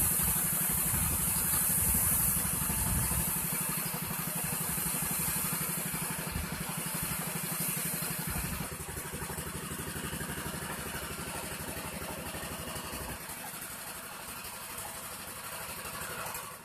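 Small petrol engine of an air compressor running steadily, under the continuous high hiss of compressed air from a gravity-feed spray gun spraying paint. The engine is heaviest in the first few seconds, and the overall level eases off slowly.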